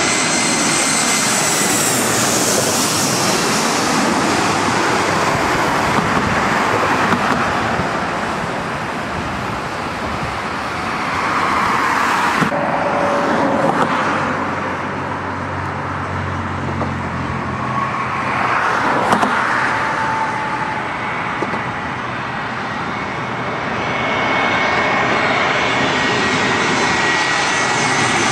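Jet airliners with gear down on approach passing low overhead: a steady loud jet engine noise with high whining fan tones. It changes abruptly about twelve seconds in, where a second aircraft, a twin-engine jet, comes in.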